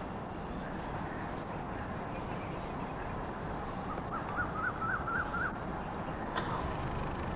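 Steady outdoor background hiss. About four seconds in, a bird calls with a quick run of about six short, high notes, and there is a single click near the end.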